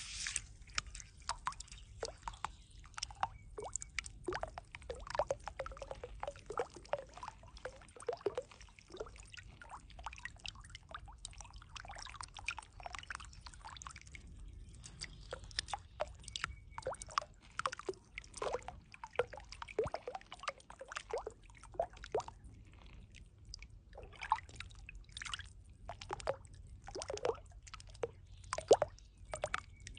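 Water dripping: irregular drops, several a second, each a short plink of varying pitch, over a low steady rumble.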